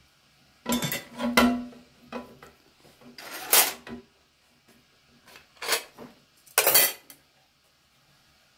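Cooking pot and its aluminium lid clanking together in a series of sharp metallic clatters, about five, as the pot is gripped and turned upside down onto its lid.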